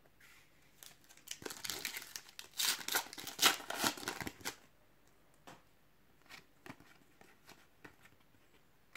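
Plastic wrapper of a Panini Adrenalyn XL card packet being torn open and crinkled, a dense run of crackling lasting about three seconds, then a few light taps as the cards are handled.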